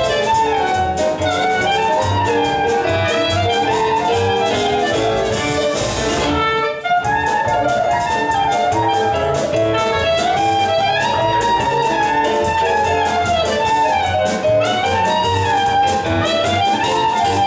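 A klezmer freylekhs played live: a clarinet leads a quick melody over keyboard, upright bass and drum kit, with a short break about seven seconds in.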